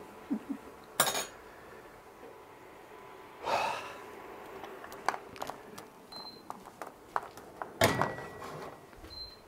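A man breathing out hard a few times, his mouth burning from Carolina Reaper chili sauce. A steel pot clinks, and there are two short high beeps from an induction hob.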